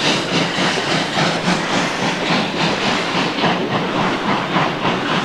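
Steam locomotive, the former Deutsche Reichsbahn class 52 now TCDD 56 548, hauling a freight train. It beats in a steady rhythm of about three beats a second over a hiss of steam.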